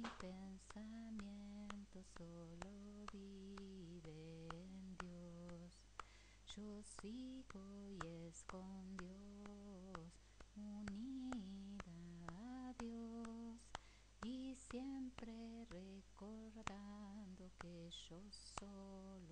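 A woman singing a melodic song solo, with the audience clapping along in a steady beat of about two claps a second.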